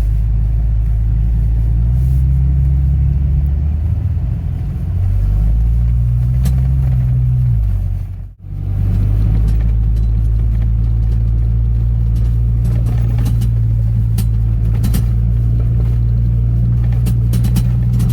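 Off-road 4x4's engine droning steadily, heard from inside the cab while driving, its pitch shifting up and down in the first half. The sound drops out briefly about eight seconds in, and scattered short clicks and knocks follow.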